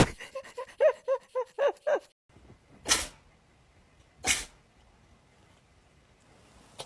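A cat giving a quick run of short, high meows, about seven in two seconds. Then, after a pause, two short, breathy bursts of noise about a second and a half apart.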